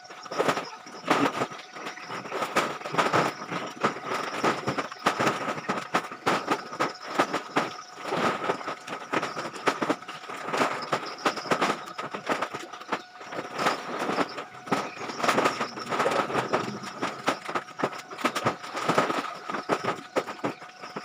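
Sacks of plastic scrap rustling and crackling as they are handled and thrown up into a truck, with irregular knocks, over a steady high-pitched hum.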